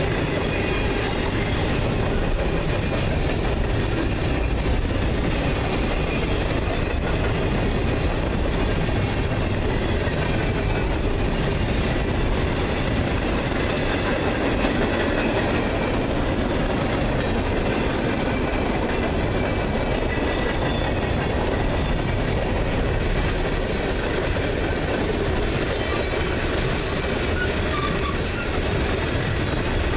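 Freight cars of a long mixed freight train rolling steadily past: a continuous rumble of steel wheels on the rails, with faint high squealing tones from the wheels.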